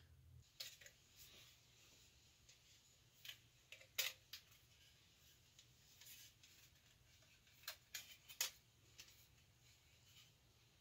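Scattered light clicks and taps of thin tinplate being handled: an Altoids tin's hinged lid opened and moved against a paint can lid. The loudest click comes about four seconds in, with a quick cluster near the end.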